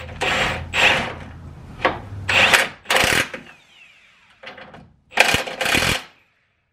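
Cordless 1/2-inch impact wrench hammering on a lower control arm bolt in a series of short bursts, running the bolt in.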